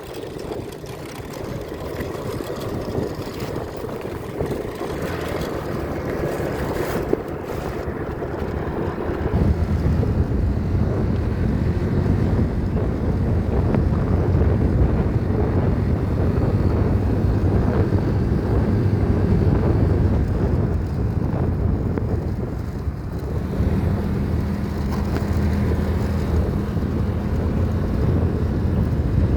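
A vehicle engine running steadily while on the move, with a low rumble that grows louder about a third of the way through. Wind buffets the microphone throughout.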